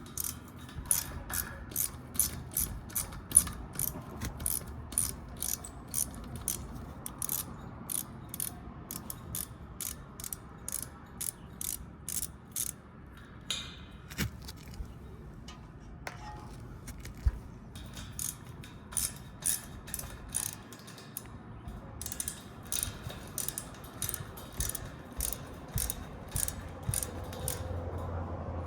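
Hand ratchet clicking in steady strokes, about two to three clicks a second, as the mounting bolts of an old, rusted condenser fan motor are backed out; the clicking pauses for a few seconds around the middle, then resumes.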